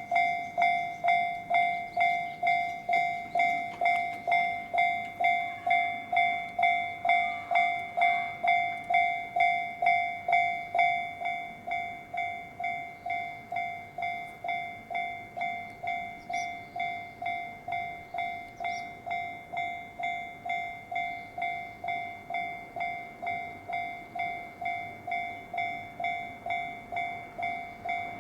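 Japanese railway level-crossing warning bell ringing in a steady, even rhythm of about two strikes a second. It turns noticeably quieter about eleven seconds in.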